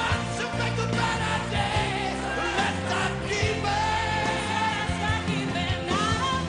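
Pop song with voices singing over an instrumental backing, a choir-like sound, with some held notes wavering.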